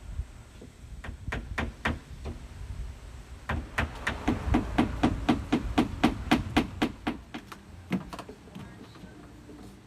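Hammer driving nails into wood framing: a few separate blows, a short pause, then a quick, even run of about four blows a second, and one last blow near the end.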